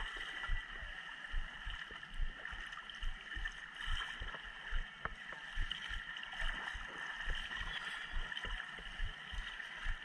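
Pool water lapping and sloshing against a camera at the surface, with irregular low thuds a few times a second, and splashing from a swimmer's front crawl, over a steady high hiss of the pool hall.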